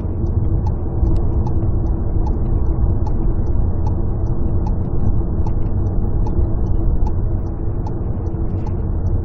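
Steady low rumble of road and engine noise inside a moving vehicle's cabin, with faint light ticks scattered over it.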